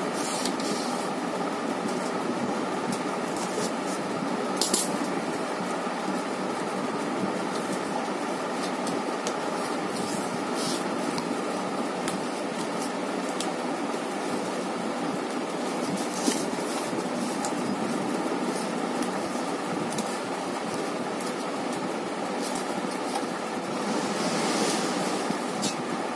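Steady mechanical whir in the background, with scattered clicks and short scrapes as the tape on a cardboard parcel is slit with a small blade and the box flaps are handled.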